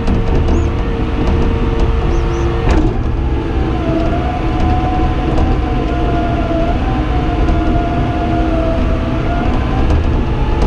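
Caterpillar D5N XL bulldozer's diesel engine running under load while the blade pushes dirt, heard from inside the cab. A whine sits over the engine, wavering a little in pitch between about four and nine seconds in.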